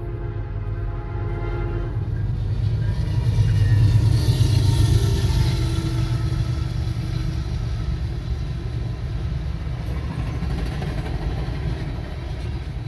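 Diesel freight train passing close by. A horn sounds and stops about two seconds in, and the heavy rumble of the locomotive and rolling cars swells to its loudest about four seconds in, then holds steady.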